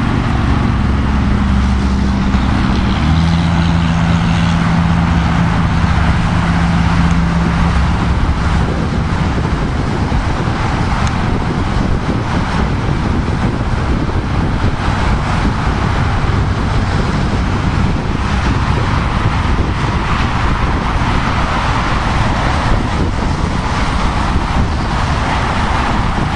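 Highway driving noise heard from a moving car: a steady rush of tyres, wind and traffic. A low engine hum steps down in pitch about three seconds in and fades out by about nine seconds.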